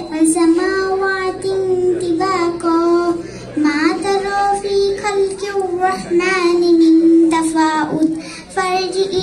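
A young girl singing solo into a microphone, holding long notes with a slight waver, with short breaths between phrases.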